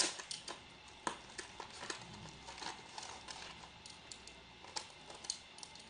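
Hands handling a small cardboard box and a metal L-shaped TV antenna connector on a hard surface: scattered light clicks, taps and rustles of packaging, with the sharpest knocks right at the start and about a second in.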